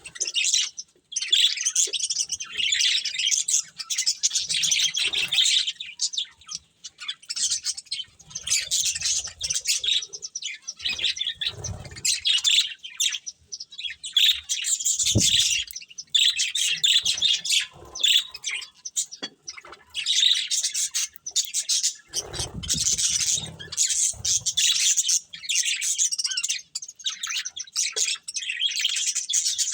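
Budgerigars chattering and chirping in rapid bouts with short pauses, with a few brief low knocks mixed in.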